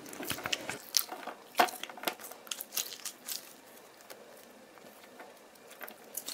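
Sticky jelly-rubber octopus squishy toy being squeezed and stretched in the hands, giving a run of small sharp clicks and crackles that thin out after about four seconds.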